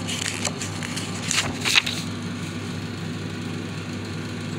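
A steady low machine hum, like a motor or engine running at idle, with a few brief noises in the first two seconds, the loudest about a second and a half in.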